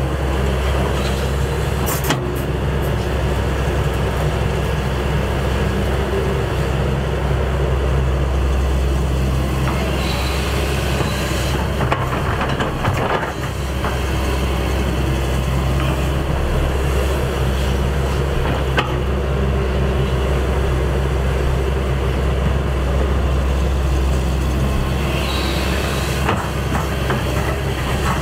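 Shantui ME210LC-1 crawler excavator's diesel engine running steadily under load as it digs soil, with a few sharp knocks along the way.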